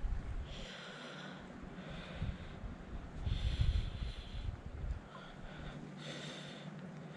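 A person breathing through the nose close to the microphone, about four audible breaths a second or two apart.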